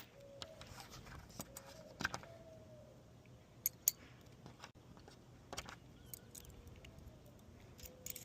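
Keys jangling on a ring, with scattered light metallic clicks as a key is handled at a Kwikset SmartKey lock cylinder that has just been rekeyed.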